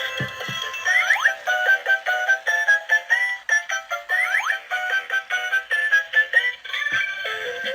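Electronic music: a quick melody of short stepping notes, with two quick upward swoops about a second in and again about four seconds in. A few soft knocks near the start and again near the end.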